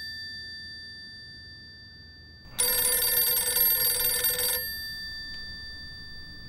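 Telephone bell ringing in its usual on-off pattern. The end of one ring fades away at first, then a new ring starts about two and a half seconds in and lasts about two seconds, and the bell's tones linger as it dies down.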